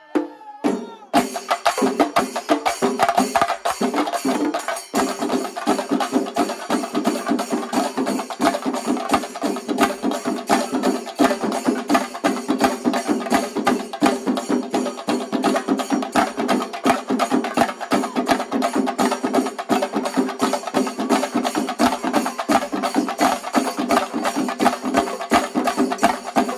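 Kerala shinkari melam ensemble: chenda drums beaten very fast with sticks in a dense, driving rhythm, with cymbals ringing over it. The playing breaks off briefly and comes back in about a second in.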